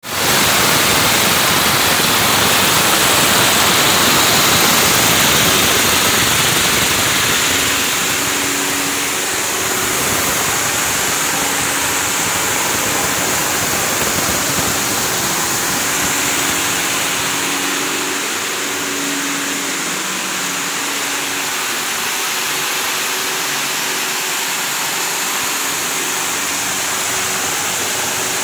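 Garlic colour-sorting line running: the vibrating feeder and conveyor machinery give a steady mechanical noise with a faint hum.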